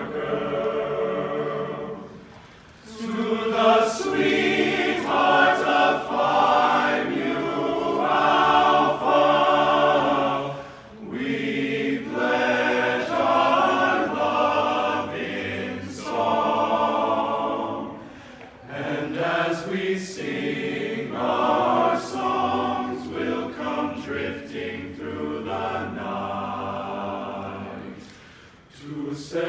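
Men's chorus singing a slow serenade a cappella in several-part harmony, in long phrases with short pauses between them.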